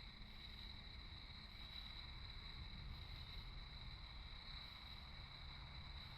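A chorus of crickets and katydids on a summer night, calling as a steady, unbroken high trill with a fainter lower band, over a low rumble.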